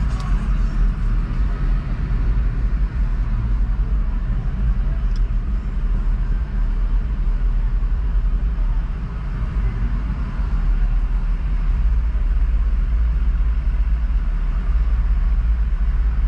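Steady low rumble of a car moving slowly in heavy street traffic, heard from inside the cabin: engine and road noise with the hum of surrounding traffic.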